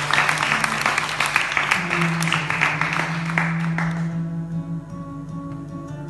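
Audience clapping that dies away about four seconds in, over slow music with long held low notes.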